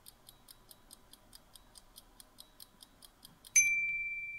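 Quiz countdown-timer sound effect: rapid, even clock ticking, several ticks a second. Near the end the ticking stops and a single loud, bright ding rings out and fades, marking time up.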